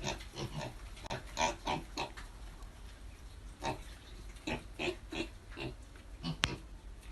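Pigs grunting in short, irregular bursts, a dozen or so brief calls in clusters, with a single sharp click about six and a half seconds in.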